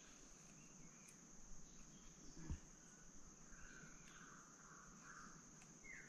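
Faint, steady, high-pitched drone of insects, with one soft knock about two and a half seconds in.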